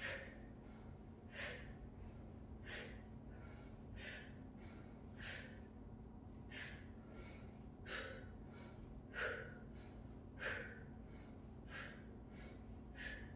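A woman breathing hard in time with side crunches: a sharp exhale about every 1.3 seconds as she lifts, with softer inhales between.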